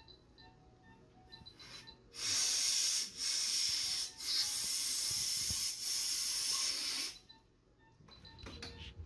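High, steady hiss of compressed air, as from a dental air syringe blowing over the teeth, in about four long blasts with brief breaks, starting about two seconds in and stopping about seven seconds in.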